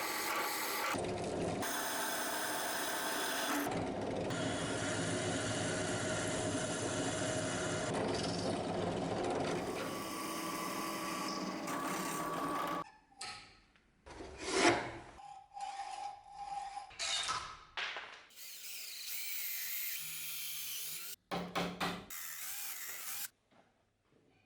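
Electric power tool running steadily while working wood for a new ash axe handle, then a string of short, abruptly cut clips of tool work, with a wavering high whine a little before the end.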